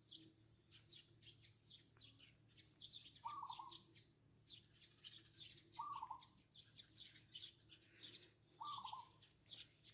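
Eurasian tree sparrows chirping in quick, continual bursts, faint, while a zebra dove gives three short trilled coos, one about every two and a half to three seconds.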